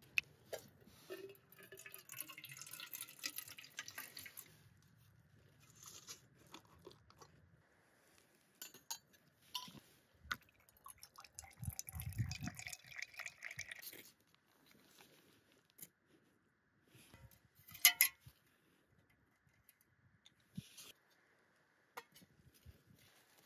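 Camp stove set up by hand: liquid fuel poured from a fuel bottle into a small spirit burner in short trickles, amid light clicks and handling of metal parts. A sharp metal clank just before the last few seconds, as the pot goes onto the stove.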